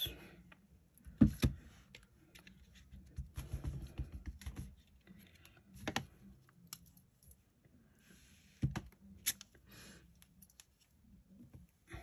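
Clear stamps on an acrylic stamping block being handled and pressed onto card at a craft desk: a few sharp clicks and knocks, the loudest about a second in, with faint rustling of card and paper between.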